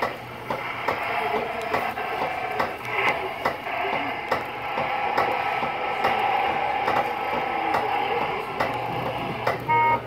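Jolly Roger bulldozer kiddie ride running: a steady mechanical rattling and clicking, with a wavering tone from the ride's speaker through the middle. Two short electronic beeps sound near the end.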